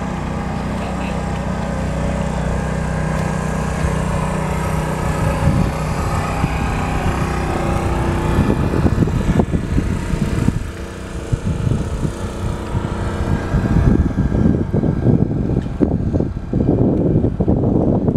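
A small wooden motorboat's engine running steadily while under way, with uneven low rumbling gusts joining from about halfway through.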